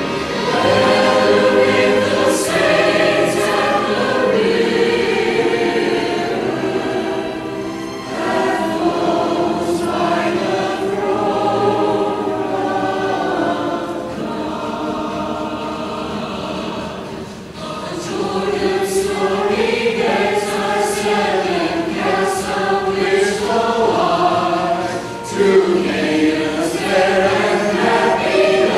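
A church choir singing, phrase after phrase, with short breaks between phrases.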